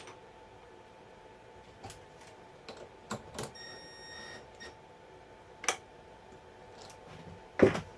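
Scattered clicks and knocks of metal parts being handled in a milling vise as the aluminum workpiece and parallels are set and tightened, with the loudest knock near the end. One short electronic beep sounds about three and a half seconds in, over a faint steady hum.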